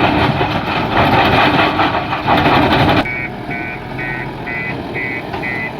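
Heavy diesel engine running loud for about three seconds, then a sudden change to a quieter engine idle with a vehicle reversing alarm beeping steadily about twice a second.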